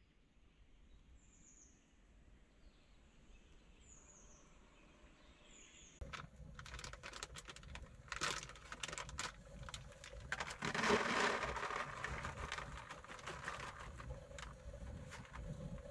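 A bird chirps a few short, falling notes. About six seconds in, a plastic food packet crinkles and rustles loudly as it is torn open and emptied into a plastic tray.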